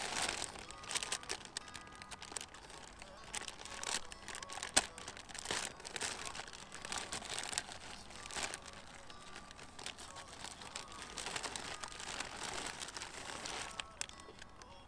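Plastic bags and foil packaging crinkling and rustling as they are handled in a styrofoam cooler, irregular throughout, with a sharp click about five seconds in.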